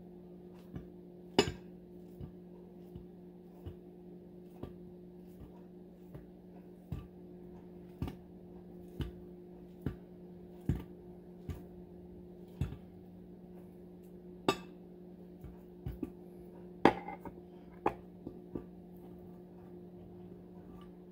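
A banana being sliced with a kitchen knife over a glass dish: sharp clicks and clinks, roughly one a second, with a louder clink a little past the middle and another near the end, over a steady low hum.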